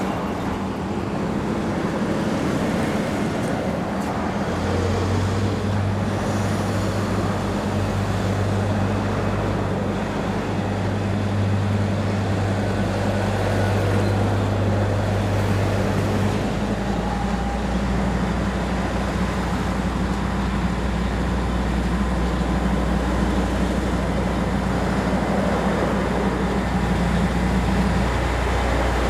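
Diesel locomotive engines running steadily. About five seconds in a stronger engine note comes up, and about halfway through it drops to a deeper one that holds to the end.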